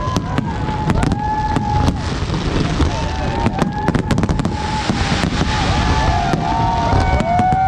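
Large fireworks display: many sharp bangs and crackles of bursting aerial shells over a continuous low rumble, with long held tones sounding on and off, growing stronger near the end.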